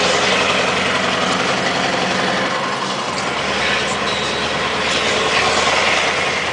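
Scania R580's V8 diesel engine pulling a fully loaded truck, heard from inside the cab as it drives. The engine runs steadily, with a brief drop in its low note about three seconds in.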